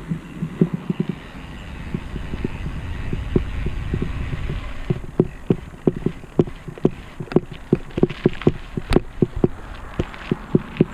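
Low rumble of steady travel along a paved road; from about five seconds in, sharp regular thumps about three a second join it.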